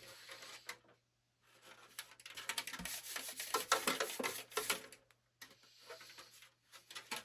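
Packaging and plastic being handled and unwrapped, a run of rustling, rubbing and crackling with many small clicks, loudest from about one and a half to five seconds in.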